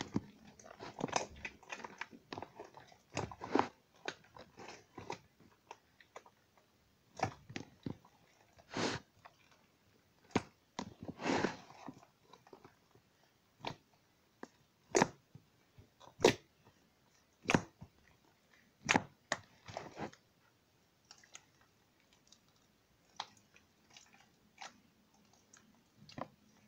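Hands squeezing, pressing and pulling a large mass of wet slime, making irregular squishing and sharp popping sounds with short pauses between them.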